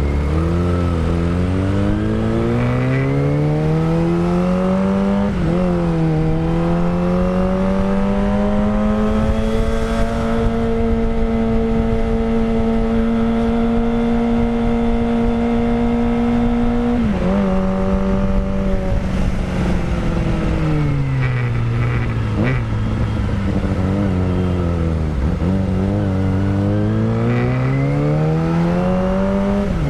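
Kawasaki Ninja ZX-25R's 250cc inline-four running loud through a Villan Pro 1 full-system aftermarket exhaust while being ridden. The engine pitch climbs under acceleration with a quick dip about five seconds in, holds steady at high revs for several seconds, falls away as the bike slows, then climbs again near the end.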